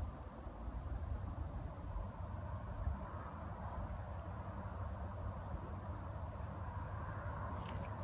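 Distant rumble of an approaching diesel freight train led by two EMD SD70M locomotives, steady and low, with the higher hiss strengthening slightly near the end. A few faint high ticks sound over it.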